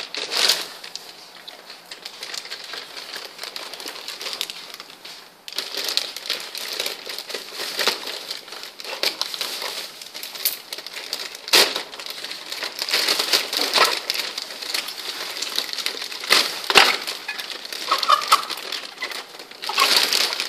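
Clear plastic bag crinkling and crackling as hands handle and pull at it, quieter at first and louder from about five seconds in.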